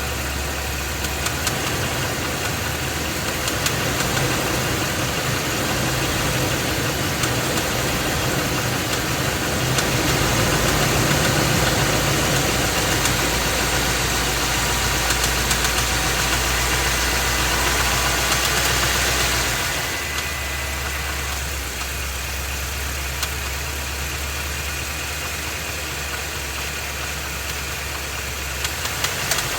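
Ford 7.3-litre Godzilla gasoline V8 running with a knocking noise and occasional sharp spikes. It runs louder from about ten seconds in and settles back about twenty seconds in. The noise is an engine fault that a dealer repair did not cure, bad enough that the engine is being replaced.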